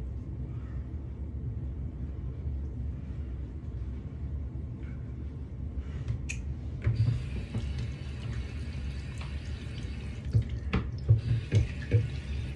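Bathroom sink tap running, starting about seven seconds in, with clicks and knocks as wet soapy hands are rinsed and handled; a low steady hum runs underneath throughout.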